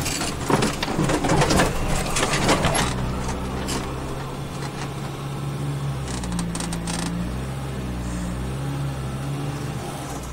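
Toyota Land Cruiser troop carrier's engine revving hard under load while climbing a mud bank, with a dense clatter of flung mud clods striking for the first three seconds. Then the engine runs on more quietly, its pitch rising and falling.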